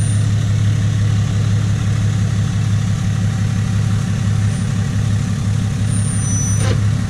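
The 2017 Ram 2500's 6.7-litre Cummins inline-six turbo-diesel idles steadily through a straight-piped exhaust, shortly after a cold start, while the truck backs slowly.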